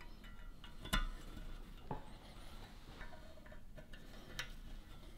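Light metallic clicks and clinks of engine parts and hand tools being handled, with one sharp click about a second in and a few softer ones after it.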